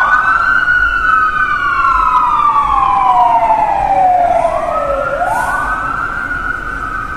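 Two emergency-vehicle sirens wailing slightly out of step. Each rises quickly, then falls slowly over about five seconds, and climbs again a little past the middle.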